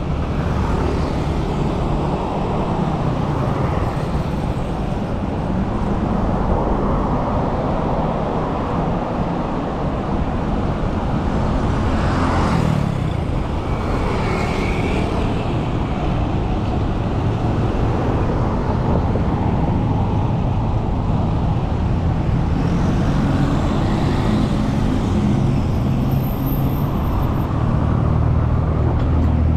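Steady city road traffic: cars and other motor vehicles running past on a busy multi-lane road, with one vehicle passing close a little before the middle and engine hum building near the end.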